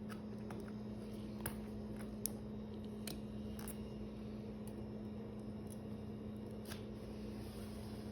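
Steady electrical hum with a handful of small sharp clicks from suturing instruments being handled.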